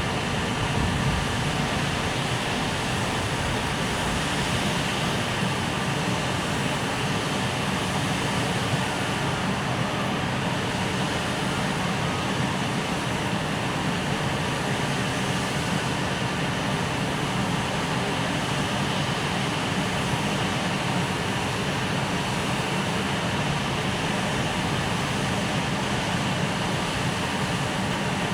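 Freight train with an EF510 electric locomotive making a steady, even rumble and hum, with no distinct clicks or knocks.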